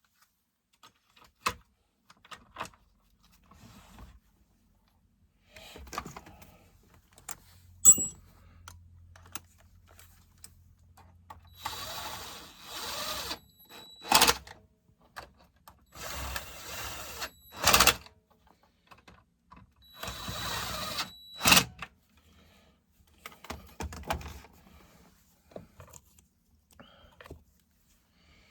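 Hands and tools working on a chainsaw: scattered clicks and knocks, with three short noisy bursts, each about a second and a half long and each ending in a sharp click.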